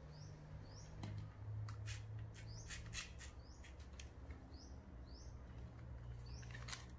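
Short rising chirps from a small bird, repeated every half-second to a second, over scattered clicks and rustles of hands handling a fabric fish toy, its zipper and the plastic motor box inside, and a low steady hum.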